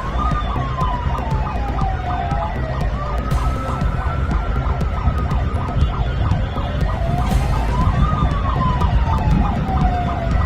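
Several loud car sirens sounding at once: a slow wail that rises, peaks and falls away twice, overlapped by a higher held tone and a rapid pulsing siren, over a heavy low rumble.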